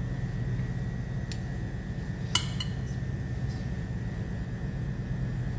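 Metal spoons clinking against a glass mixing bowl as macaroni salad is stirred, with two sharp clinks, the louder about two and a half seconds in. A steady low hum from the kitchen extractor hood runs underneath.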